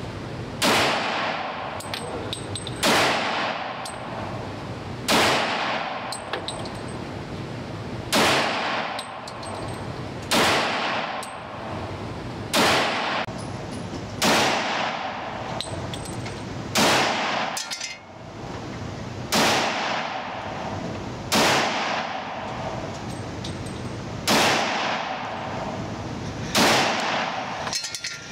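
Glock 32 Gen 4 pistol in .357 SIG firing slow, single aimed shots, about twelve in all, roughly one every two seconds. Each shot is a sharp crack that rings out in an indoor range.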